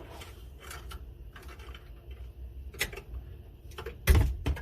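A screwdriver prying at a stubborn plastic electrical connector under a truck dash: scattered light clicks and scrapes, then a loud clatter about four seconds in as the piece gives way.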